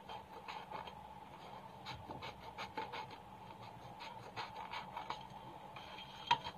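Scissors snipping through a glitter craft-foam sheet: a run of faint, irregular short clicks, over a faint steady hum.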